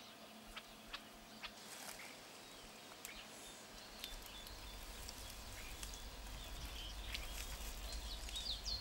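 Faint outdoor nature ambience with scattered small clicks and a few short, high bird chirps, the chirps gathering near the end. A low rumble comes in about halfway and slowly grows.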